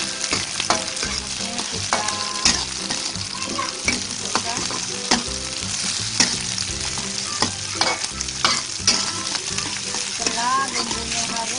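Oil sizzling in a wok as shallots, garlic, leek and tomato are stir-fried, with a metal spatula scraping and knocking against the pan at irregular intervals, about once a second.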